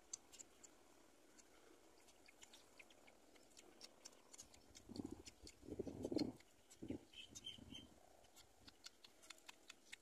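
Faint rustling and small ticks of twigs in a black-winged kite's stick nest as the brooding adult shifts over its chicks, loudest about five to six seconds in. A few faint high peeps come a little after seven seconds.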